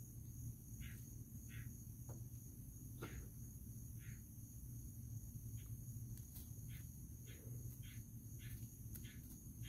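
Faint outdoor insect ambience: a steady high-pitched insect trill, with short chirps repeating every half second to a second and a low steady hum underneath.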